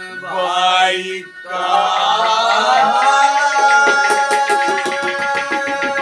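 A man singing in long held notes, accompanied by clay pots played with the hands as drums. The pots come in with a steady, quick beat about halfway through.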